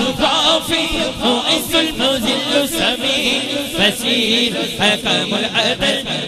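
A man's devotional chanting of the names of Allah, sung into a handheld microphone and amplified, with other voices chanting along behind him.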